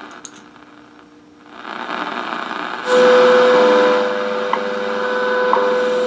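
Shortwave receiver tuned onto a time-signal broadcast: the static hiss swells, then just under three seconds in a steady tone comes in with a short tick once a second.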